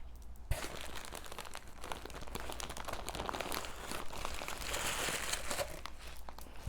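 Crinkling and rustling of a gift bag and its wrapping being handled and opened by hand, with many small crackles. A light knock comes about half a second in, and a sharp, loud knock near the end.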